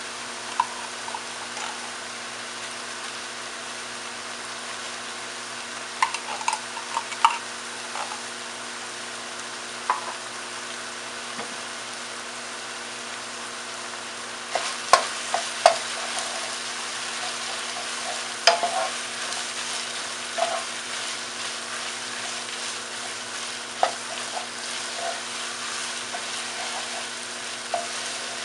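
Ground beef and onions sizzling steadily in a frying pan, with sharp knocks and scrapes of a cooking utensil against the pan now and then as tomato paste is added and stirred in. The stirring gets busier from about halfway through.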